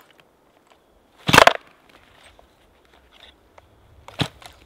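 Stihl 260 chainsaw's recoil starter cord pulled twice, two short ripping pulls, the first about a second in and the louder, the second near the end.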